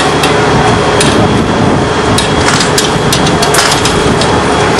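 A heavy engine running steadily and loudly, with scattered sharp knocks over it.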